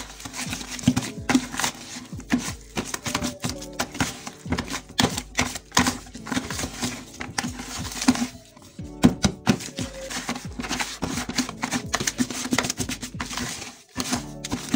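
A wooden stick stirring a powdery mix in a plastic bucket, scraping and knocking against the bucket's sides and bottom in a quick, irregular clatter. Background music plays underneath.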